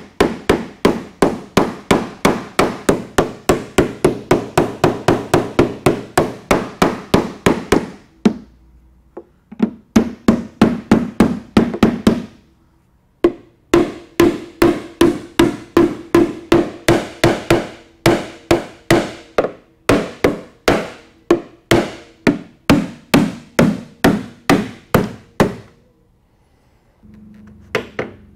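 Hand hammer striking the fiberglass front end of a 1964 Corvette C2 in fast, even blows, about four a second, in three runs with short pauses and a stop near the end. The blows are pre-breaking the glue along the bonded seam so the front end can be cut off.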